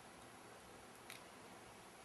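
Near silence: faint room hiss, with one short, faint click about a second in.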